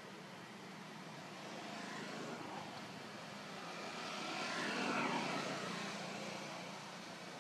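A distant engine passing by, swelling to its loudest about five seconds in and dropping in pitch as it goes past, then fading.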